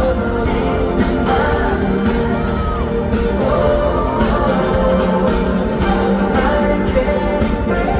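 A pop song with a sung vocal, played loud and steady over a concert arena's sound system and heard from within the audience.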